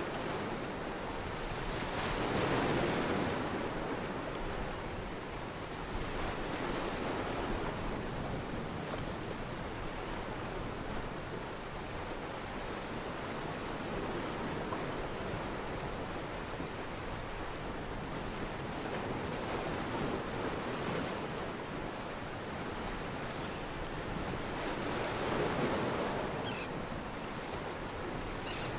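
Steady rushing of wind and water, with no distinct calls or knocks. It swells louder for a second or two a few times: two or three seconds in, around six to seven seconds, and twice near the end.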